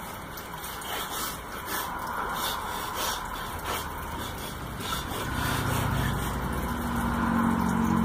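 A steady engine-like motor hum under general noise, growing louder from about halfway through.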